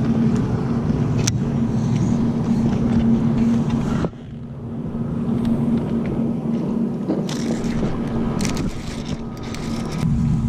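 Boat's electric trolling motor humming steadily at a constant pitch, with a few sharp clicks of rod and reel handling. The hum drops out abruptly about four seconds in and then gradually builds back.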